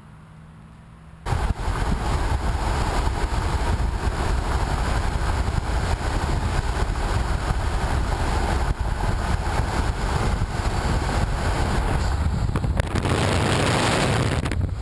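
Wind rushing over a camera held outside a moving car's window, over steady road and tyre noise at highway speed, starting abruptly about a second in. The wind noise grows louder and brighter for a couple of seconds near the end.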